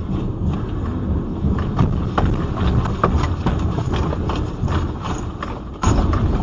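Earthquake shaking: a heavy low rumble with many loose objects rattling and knocking irregularly throughout.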